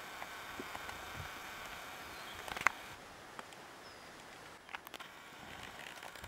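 Faint steady outdoor background hiss, with one sharp click a little under three seconds in and a few softer ticks later on.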